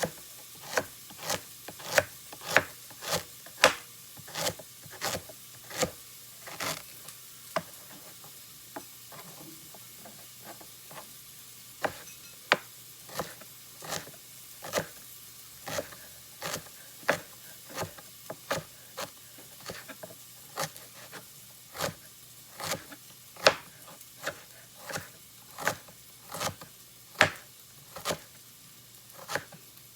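Utensil stirring minced ginger sautéing in a hot pot: sharp knocks and scrapes against the pot about one to two times a second, over a faint sizzle.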